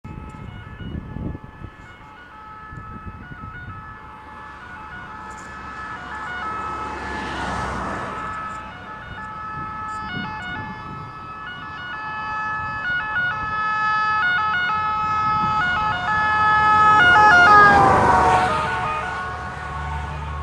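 Two-tone siren of an Italian fire brigade Mercedes-Benz Actros 1841 fire engine, alternating between two pitches and growing louder as the truck approaches. It passes about three quarters of the way through, with the rush of the truck going by and the siren's pitch dropping as it moves away; another vehicle goes by about seven seconds in.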